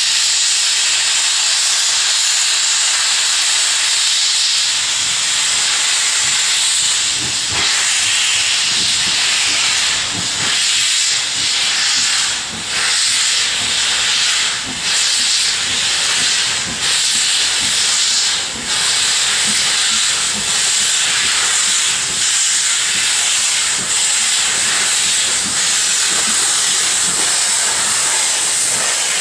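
LMS Princess Royal class 4-6-2 steam locomotive starting away with its cylinder drain cocks open: a loud, steady hiss of escaping steam, with low exhaust beats underneath from several seconds in. The hiss dips briefly every couple of seconds in the second half.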